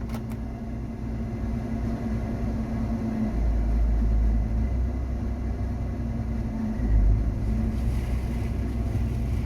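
Claas Lexion combine harvester running with a steady hum, a deeper rumble swelling in about three seconds in and again near seven seconds.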